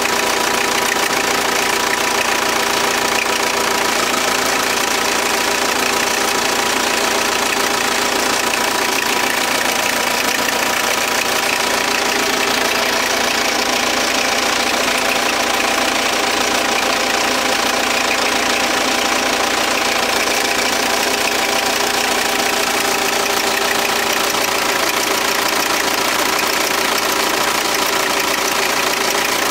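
Volkswagen Passat B5's 1.9 TDI four-cylinder turbodiesel engine running steadily, with a knocking in the engine that the owner is filming as a fault.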